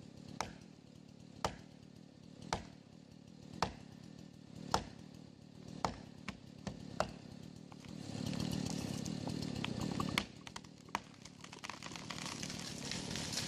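Sharp chopping strikes, about one a second, then about two seconds of a chainsaw running, followed by a few scattered knocks and a rising hiss near the end.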